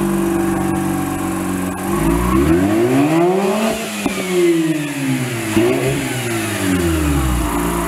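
2005 Mazda RX-8's two-rotor Wankel rotary engine through an aftermarket performance exhaust, idling and then revved. One long rev climbs about two seconds in and falls away, two quicker blips follow, and it settles back to idle near the end.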